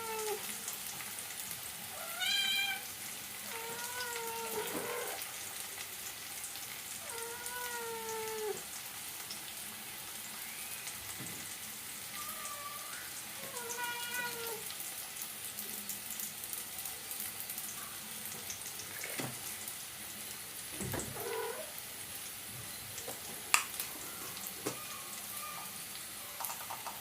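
A cat meowing several times, each meow a short rising-and-falling cry, over the faint steady sizzle of food frying in a pan.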